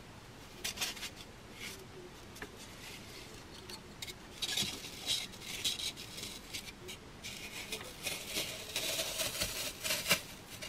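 Dry floral foam block scraping and rustling against the rim of a terracotta pot as it is handled and pushed down into it: faint, scattered scratchy sounds, busiest about four seconds in and again near the end.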